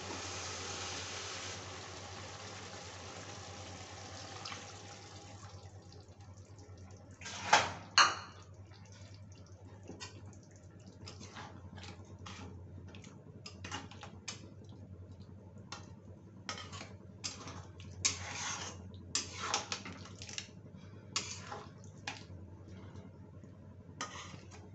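Okra in gravy simmering with a steady hiss in a steel kadai, fading after about five seconds. Then a metal spatula stirs and scrapes against the pan, with two loud knocks about seven and a half seconds in and scattered scrapes and clinks after.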